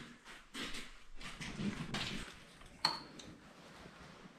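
Faint clatter of metal tools and parts being handled on a lawn tractor: scattered light clicks and knocks, with one sharp metallic clink that rings briefly almost three seconds in.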